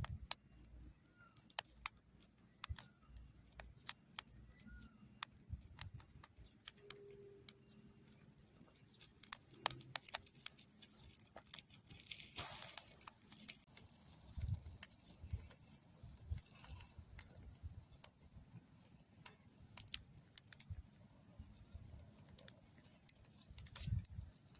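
Scattered, irregular sharp clicks and crackles, with a few faint chirps in the first seconds.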